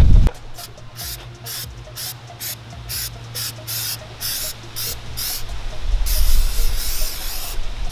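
Aerosol can of Stoner Car Care Tarminator tar and sap remover spraying in a series of short hissing bursts, about two a second, then one longer spray of about a second and a half near the end.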